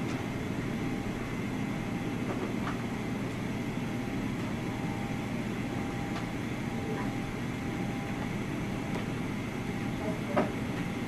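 Steady distant rumble of heavy diesel construction machinery, a hydraulic excavator and dump trucks working in an excavation pit, mixed with city traffic, with a faint steady whine and a few faint knocks, the loudest one shortly before the end.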